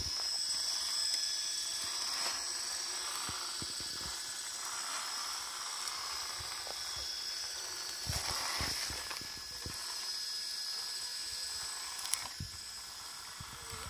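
Scale RC rock crawler's electric motor and geared drivetrain whining steadily at crawling speed, with a few knocks as the tyres and chassis clamber over rock, the loudest a little past halfway.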